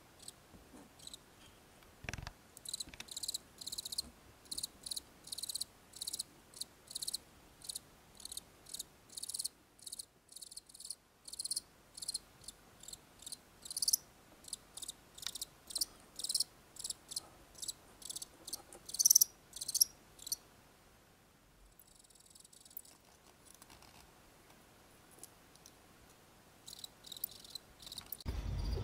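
House cricket (Acheta domesticus) chirping: short high chirps repeated about two or three times a second. The chirping stops for several seconds about two-thirds through and starts again near the end.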